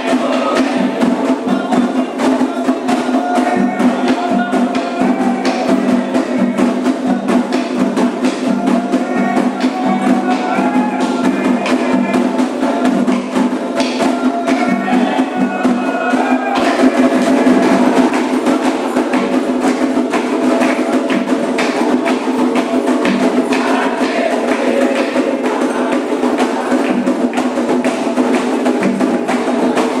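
Candomblé ritual music: atabaque hand drums playing a fast, dense rhythm with a struck agogô bell pattern, and voices singing over it.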